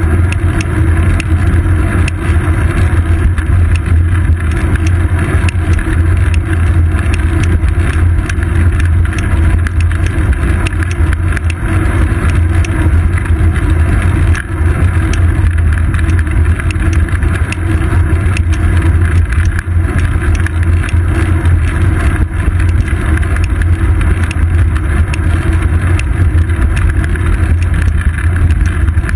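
Loud, steady low rumble of road vibration and wind on the microphone of a GoPro Hero 2 camera mounted on a road bike's seat post while the bike rolls along asphalt, with constant small ticks and rattles from the mount.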